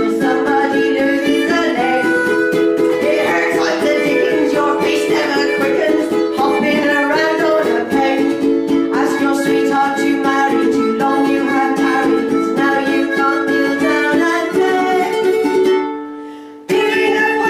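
Live ukulele strumming with harmonica chords and a woman's singing. The sound fades away briefly near the end, then cuts back in abruptly.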